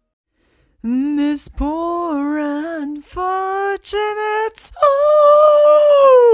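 A bass singer's voice, starting about a second in with short high, wavering sung phrases broken by brief pauses. It then holds a long, higher note that begins to slide steeply down near the end.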